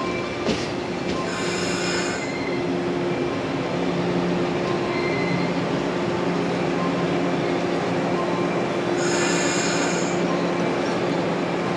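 Yellow 115-series electric train rolling slowly along a platform, with a steady running hum from its motors and wheels. High-pitched wheel squeal rises twice, about a second in and again near the end.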